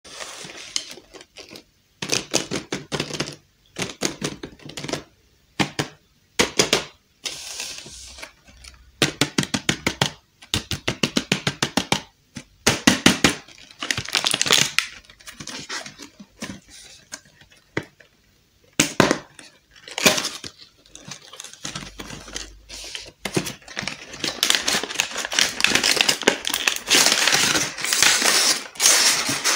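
Cardboard box and clear plastic blister packaging being handled and opened: tearing, crinkling and rattling in short bursts, some as rapid runs of clicks. Near the end comes a longer stretch of crinkling and scraping as the plastic tray comes out of the box.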